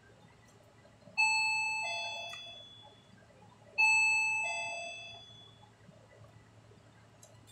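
Two-note electronic doorbell chime going "ding-dong", a higher note then a lower one, rung twice about two and a half seconds apart, each fading away. It is a call chime summoning the household worker.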